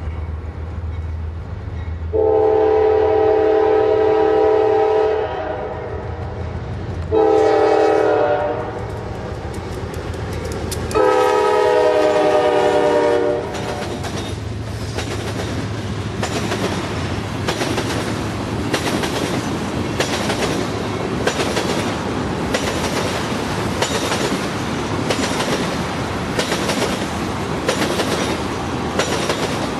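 Diesel locomotives of a slow CSX freight train, C40-8W 7918 and a GE Evolution unit, rumble past and sound a multi-tone horn three times: long, short, long. After that the cars roll by, wheels clacking over rail joints at an even beat of about one a second.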